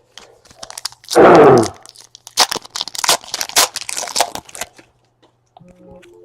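Foil trading-card pack wrapper being torn open and crinkled, a quick run of crackling rips. About a second in, a brief loud vocal sound comes just before it.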